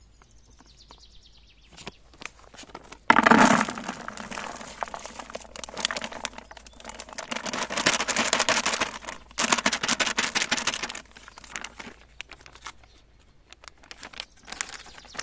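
Carp particle bait being handled and mixed: crinkling of a plastic bag and a dense rattling rustle of grains in a container. It comes in bursts, starting suddenly about three seconds in and dying down after about eleven seconds.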